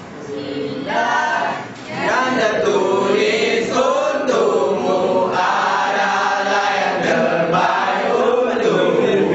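A group of students singing together, holding long notes.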